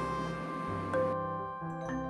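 Background music, held tones with new notes struck about a second in and again near the end.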